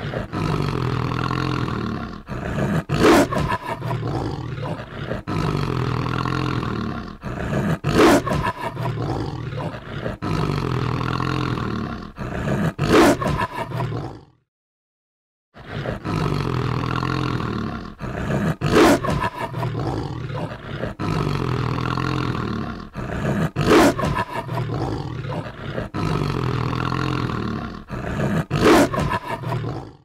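A wolf growling low and continuously, with a louder snarl about every five seconds. It breaks off for about a second midway, then starts again.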